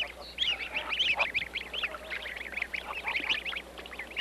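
A brood of greylag goslings peeping without pause: short, high-pitched contact calls, several a second, with a few lower calls mixed in. It is the constant chattering by which the young and their parents learn each other's voices.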